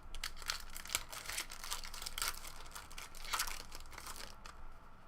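Plastic-foil trading-card pack wrapper crinkling as it is torn open and handled: a dense run of crackles that dies away about four and a half seconds in.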